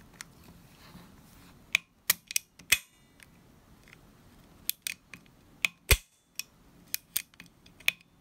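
The trigger mechanism of a VFC FN FNC gas blowback airsoft rifle being worked by hand: about a dozen sharp small metal clicks in two groups, the second starting about halfway through. This tests whether the burst-fire parts now engage after a shim was fitted to take up play.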